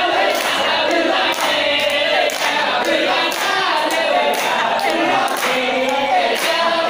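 A group of men chanting sholawat together for the samman dance, with a sharp clap about once a second.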